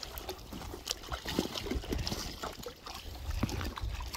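River water lapping and trickling at the bank, with small irregular splashes and a low rumble underneath.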